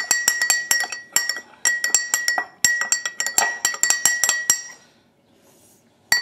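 A spoon stirring oil and water in a drinking glass, clinking rapidly against the glass with bright, ringing clinks several times a second. The stirring stops about five seconds in, and one more clink comes near the end.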